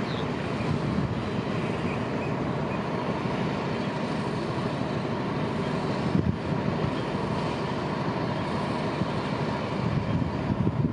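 NKF diesel railcar train running, a steady rumble with rail noise and a few short louder knocks.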